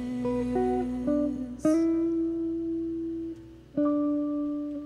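A small band plays an instrumental passage between sung verses: piano, hollow-body electric guitar and double bass, with long held melody notes. The sound dips briefly about three and a half seconds in, then a new held note comes in.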